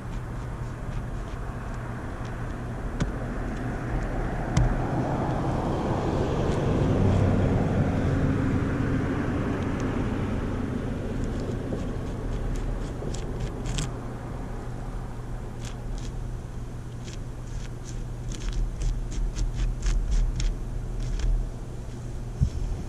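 Motor vehicle noise: a steady low hum, with a vehicle sound swelling to its loudest about seven seconds in and fading away, followed by scattered sharp clicks.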